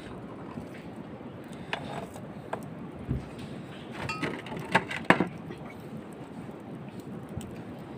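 Scattered knocks and clicks of wood being poked and fed into a clay charcoal stove, the loudest two close together about five seconds in, over a steady background hiss.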